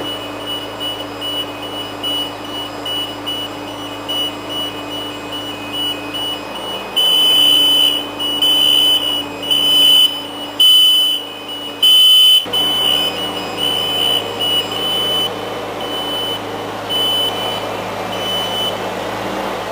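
Genie boom lift's motion alarm beeping in a fast, even series at one high pitch, over the lift's engine running. The beeping is louder for a few seconds in the middle.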